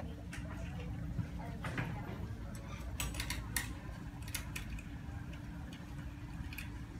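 Store room tone: a steady low hum with scattered light clicks and taps from handling.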